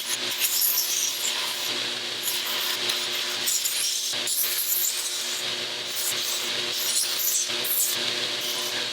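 Belt sander running while a block of scrap wood is pressed against the slack part of the belt to round it over: a steady motor hum under an uneven rasping of wood being ground.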